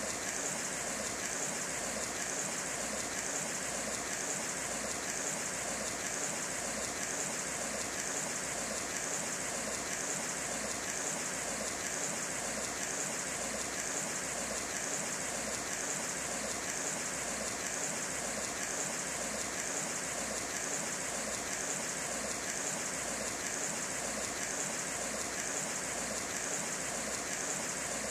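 Steady rush of a swollen, muddy river in flood after heavy rain, an even, unbroken hiss of fast-flowing water.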